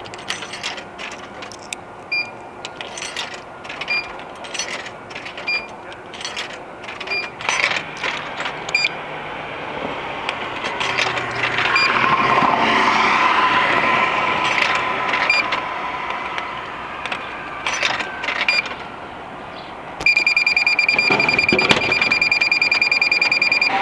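Short, high electronic beeps repeating about every 0.7 s, among scattered clicks and knocks, with traffic noise swelling in the middle. A loud, steady electronic tone starts about four seconds before the end and runs on.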